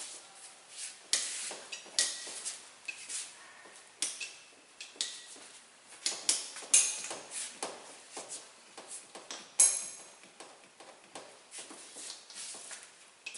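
Whiteboard duster wiping across a whiteboard in many quick, uneven rubbing strokes, with a few brief squeaks and a sharper knock a little before the tenth second.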